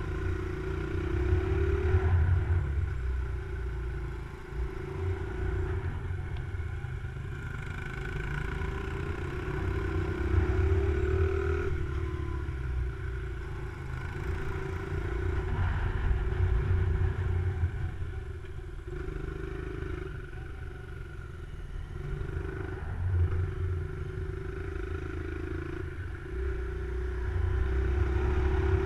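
Small minibike's engine revving up and dropping off again and again, about every two to three seconds, as the throttle opens and closes through the tight corners. A low, uneven wind rumble sits on the helmet-mounted microphone.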